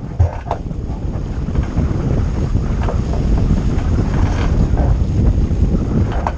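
Wind buffeting the microphone of a camera on a 49er skiff's foredeck, a loud steady rumble, with water rushing and splashing against the hull as the boat sails.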